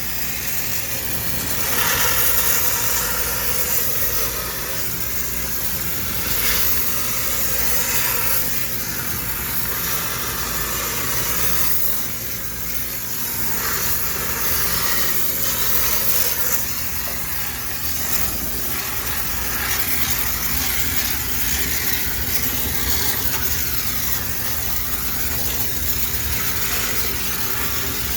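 High-pressure steam cleaner running with a steady low hum while its steam jet hisses, swelling and easing every few seconds as the steam is sprayed.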